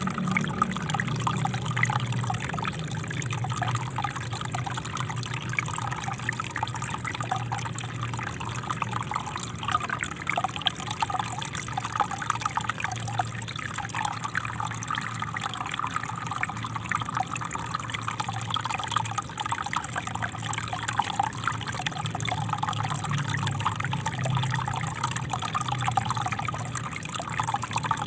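Small river flowing steadily, water splashing and trickling over rocks.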